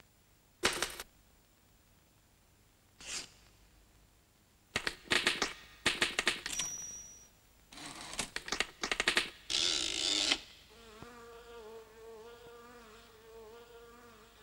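Cartoon sound effects: two short noises, then a typewriter typing in quick bursts with a brief bell ding and a longer rasping burst. From about eleven seconds in, a fly buzzes with a wavering pitch.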